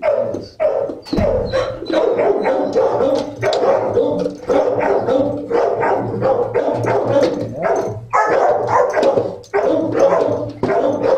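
Dogs barking repeatedly, one bark after another with hardly a break.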